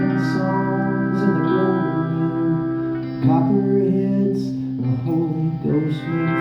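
Live band music: an instrumental passage with an electric guitar lead played through effects, holding and bending sustained notes.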